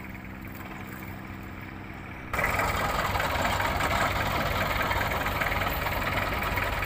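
A small boat engine running steadily. About two seconds in it abruptly becomes much louder and noisier, then keeps running at that level.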